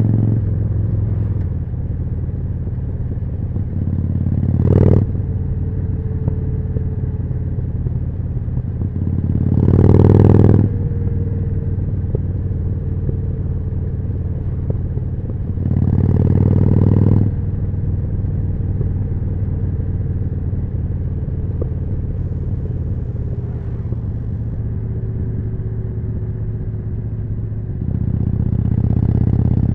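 Harley-Davidson Forty-Eight's 1200 cc V-twin breathing through a Jekill & Hyde exhaust, running steadily while under way. The throttle is opened four times, about five seconds in, around ten seconds, around sixteen seconds and near the end, each time the exhaust swelling louder for a second or two before settling back.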